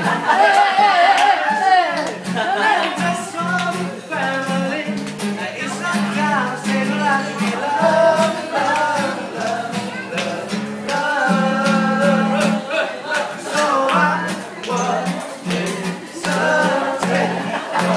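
A song played on acoustic guitar with a voice singing over it, over a steady bass line.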